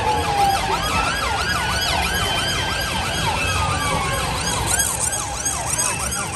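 Several emergency-vehicle sirens sounding at once, their fast up-and-down yelps overlapping, over a steady street din.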